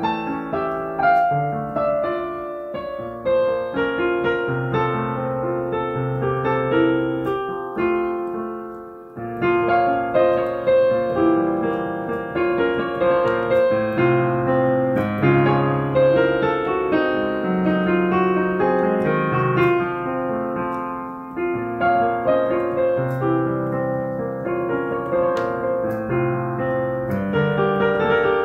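Yamaha YDP-164 digital piano playing a slow, expressive minor-key piece: a singing melody over a lower accompaniment, with a short pause about eight seconds in where the notes die away before the playing resumes.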